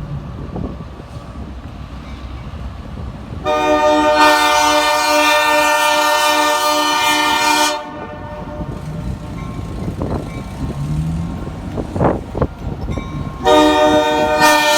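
Diesel locomotive air horn of the Vermont Railway GP9 sounding a chord of several tones in one long blast of about four seconds, then a second long blast starting near the end. Between the blasts the locomotive's diesel engine rumbles, with a few sharp clanks.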